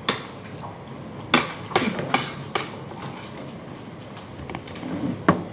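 Cooked lobster shell cracking and snapping as it is pulled apart by hand: a handful of sharp cracks, one right at the start, four close together around the middle and one near the end.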